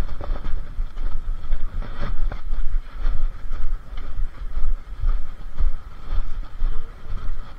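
Railway platform ambience at a train station, dominated by a loud, unsteady low rumble from a body-worn camera's microphone being jostled while walking beside a train, over a faint steady hum. A few knocks sound at the start and about two seconds in.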